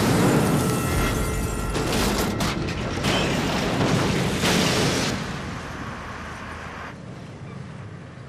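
Explosion: a huge blast with further booms over the first five seconds, then a rumble that fades away.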